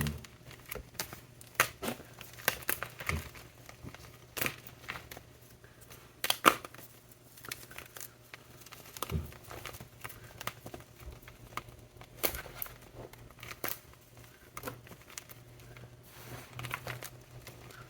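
ETHOS gym chalk blocks, topped with shaving gel and glitter, being crushed: irregular sharp crunches and crackles, the loudest about six and a half seconds in.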